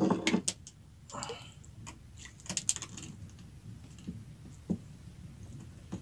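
Small clicks, taps and knocks of hands handling a fishing handline and hook in a small boat, with a louder knock at the start and a cluster of quick ticks about two and a half seconds in.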